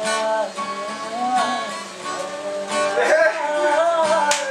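Acoustic guitar strummed under a man's singing. Near the end the singing breaks into laughter and a single sharp hand clap.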